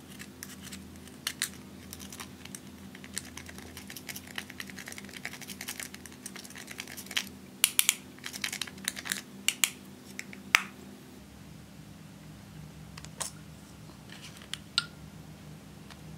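Metal spatula scraping and tapping pressed powder makeup out of its compact pan, a fast run of small scratchy clicks that is loudest about eight to ten seconds in. After a cut about eleven seconds in, only a few single clicks.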